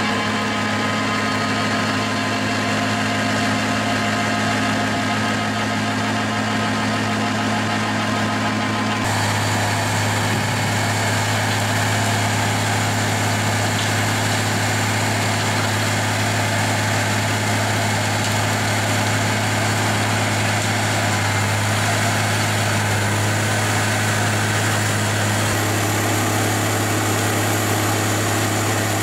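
JCB Fastrac 8250 tractor's engine running steadily under load while it powers a PTO-driven FAE mulcher shredding brush, a continuous machine hum. The tone changes abruptly about nine seconds in.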